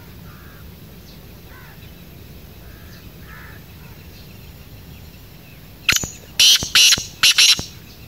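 Black francolin calling: a loud, harsh run of about four rapid grating notes lasting under two seconds, starting about six seconds in. Before it, faint distant bird chirps.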